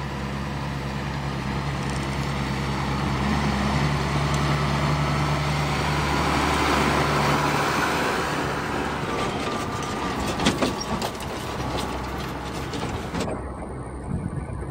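Case IH 7250 Magnum tractor pulling a digestate tanker drives past close by, its engine running steadily and growing louder as it approaches. The engine tone drops away as it passes about eight seconds in, leaving rumbling running gear with scattered clicks and knocks as the rig moves off.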